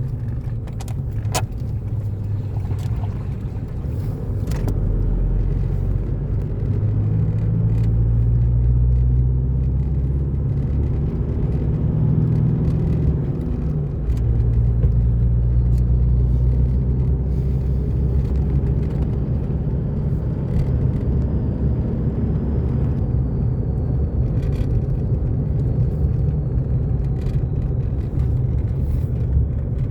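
Car driving, heard from inside the cabin: a steady low engine hum and road rumble, with the engine note shifting a few times.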